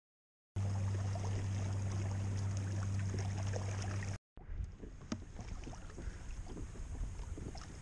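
Wind and water noise around a kayak on choppy open water, with a steady low hum under it for the first few seconds that cuts off abruptly about four seconds in; after that the noise is lower and rumbling, with a few small knocks.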